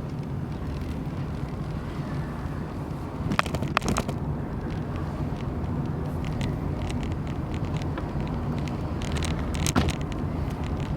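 A car driving, its engine and road noise a steady low rumble, with a few sharp knocks or rattles: two about three and a half seconds in and one near the end. The car's muffler is faulty and due for repair.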